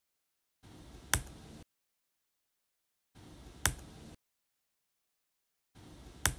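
A button-press click sound effect, one sharp click three times about two and a half seconds apart. Each click sits in a second of faint hiss, with dead silence between.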